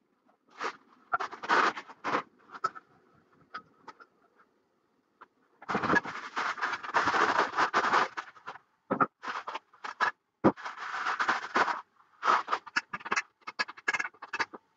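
Cardboard packaging scraping and rustling and plastic wrap crinkling as a telescope tripod is unpacked, in irregular bursts with a few sharp knocks. It falls quiet for a couple of seconds about four seconds in.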